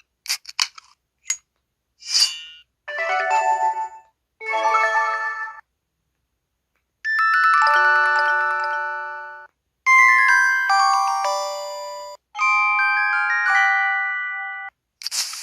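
IM-S640S mobile phone's built-in sound effects played one after another: a few quick electronic blips and a short chirp, then five short synthesized chime jingles, each a quick run of bright notes, with a short hissy whoosh near the end.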